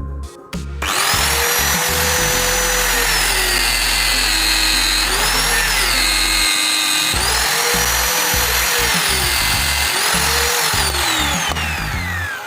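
Electric power tool running at high speed with a whine that dips in pitch twice, then winds down with a falling whine near the end. Background music plays underneath.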